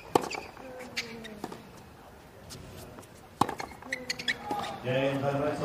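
Tennis rally on a hard court: a ball struck by rackets with several sharp hits, shoes squeaking on the court surface. A voice calls out near the end.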